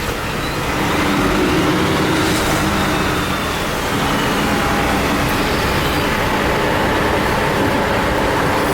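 Wheat pouring out of a grain semi's open hopper trap door into an elevator pit, with the truck's diesel engine and elevator machinery running steadily.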